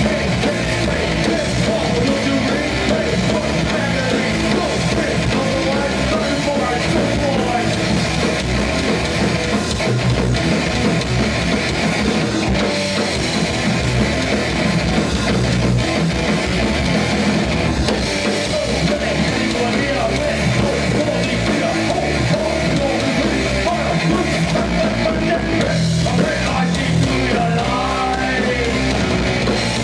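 Hardcore band playing live: loud, continuous rock with electric guitars and drums.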